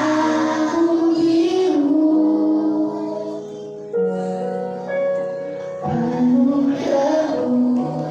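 A song with singing over instrumental accompaniment. The voices pause for a few seconds in the middle while the accompaniment holds long notes, then the singing resumes.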